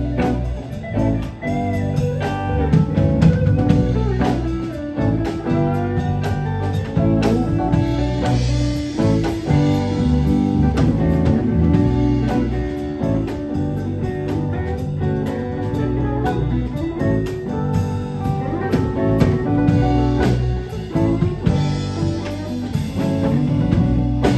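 A live blues band jam: electric guitars playing over electric bass and a drum kit, with bent, gliding guitar notes.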